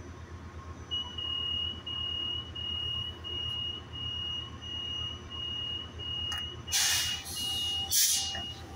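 Door-closing warning beeps on a Metrolink commuter coach, a steady string of high beeps about one and a half a second. Near the end the side door slides shut with a rush of air and a thump. A low hum from the standing train runs underneath.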